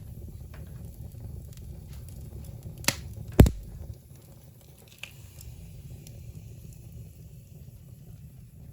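Newly lit wood fire crackling in an open fireplace, with scattered faint snaps over a low rumble. Two sharp knocks about three seconds in, the second much louder.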